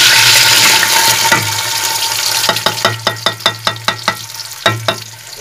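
Chopped onions hitting hot oil in an aluminium cooking pot: a loud sizzle that dies down over the first couple of seconds. Then a quick run of sharp metal taps, about six a second, as the steel bowl is knocked against the pot to empty it, with two more taps near the end.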